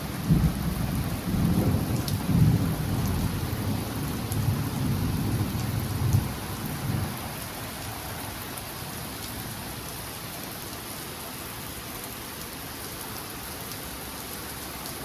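Rolling thunder rumbling in several swells for about the first seven seconds, then dying away, with steady rain falling throughout.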